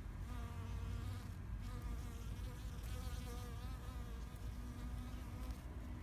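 A bee buzzing as it flies close by among the flowers, its hum wavering up and down in pitch and fading near the end, over a low steady rumble.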